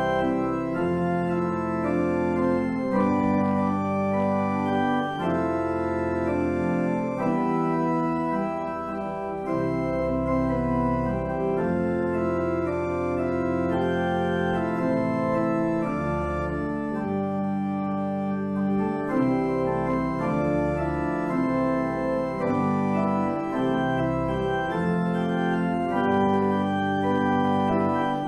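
Church organ playing full, sustained chords that change every second or so over a moving bass.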